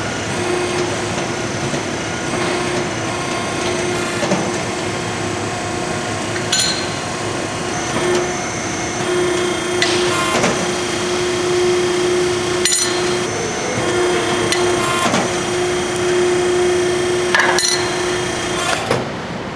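Hydraulic ironworker running with a steady hum, with several sharp metallic clanks as its punch is driven through steel plate to make bolt holes.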